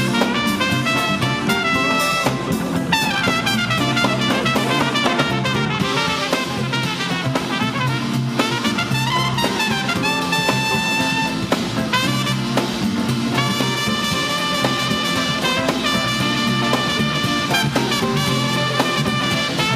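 Live jazz band playing an instrumental tune, a trumpet carrying the lead line over drum kit and a repeating bass figure.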